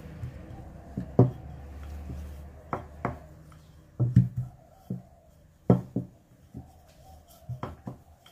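Wooden rolling pin rolling out bread dough on a pastry mat, knocking against the table in a string of irregular dull thumps and taps.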